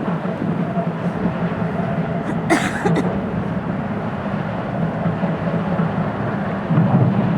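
Steady low rumble of the passenger ship Nippon Maru's machinery, with one short sharp sound about two and a half seconds in; the rumble grows louder near the end.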